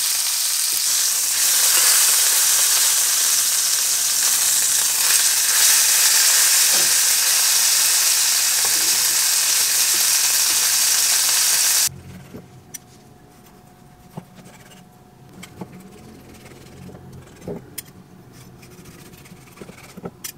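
Beef tenderloin steak and garlic cloves sizzling loudly in oil in a frying pan. The sizzle cuts off suddenly about twelve seconds in, leaving quiet scattered taps and clicks of a knife and metal tongs on a wooden cutting board as the steak is sliced.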